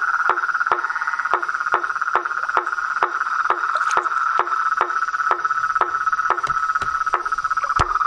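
Frogs calling at night: a continuous high trill, with a steady series of sharp clicking calls about three a second over it.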